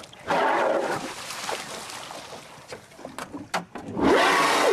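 Humpback whale breathing out at the surface beside the boat: two loud whooshing blows, one about half a second in and one near the end, the second with a tone in it.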